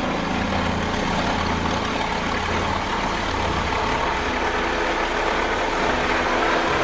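Helicopter running steadily, a continuous engine and rotor noise with a low throb.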